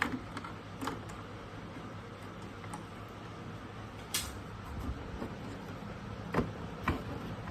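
A few sharp clicks and knocks from handling, over a steady low electrical hum.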